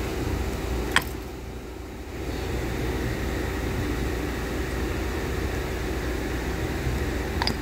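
Steady low mechanical background hum, with a sharp click about a second in and another near the end as the metal valve parts are handled.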